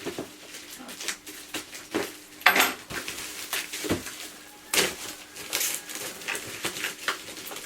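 Packaging and small boxed items being handled during an unboxing: irregular rustles and sharp clicks, with a couple of louder knocks about two and a half and five seconds in.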